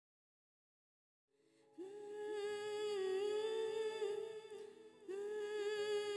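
Silence for about a second, then a high voice humming a slow, wordless melody in two phrases, with a brief break about five seconds in.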